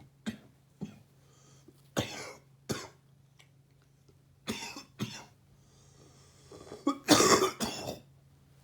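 A man coughing from a cold: single wet coughs spaced out, then a longer, louder fit of several coughs near the end.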